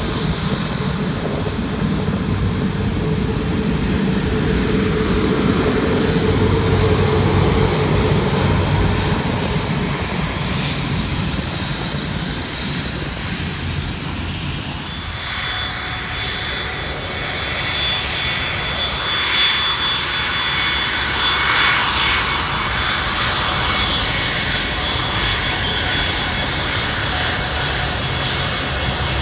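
Airliner jet engines on the ground: a Boeing 787 taxiing with a steady low engine hum, then, after a sudden change about halfway through, a Boeing 757's engines running with a thin high whine over the rush of engine noise.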